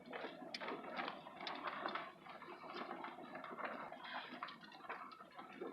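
Small car driving slowly over a rough dirt and gravel trail, heard from inside the cabin: a steady run of faint, irregular clicks and crunches from the tyres and loose parts.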